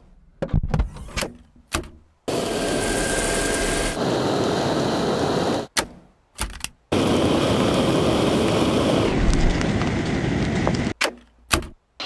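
Dyson V6 cordless vacuum: a few plastic clicks and knocks as it is unclipped and fitted with a tool, then the motor runs with a steady rushing suction noise in two long bursts, each cut off abruptly, with more clicks between and after.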